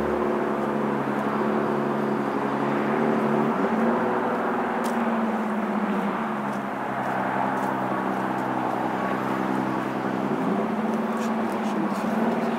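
An engine running steadily, its pitch rising a little twice.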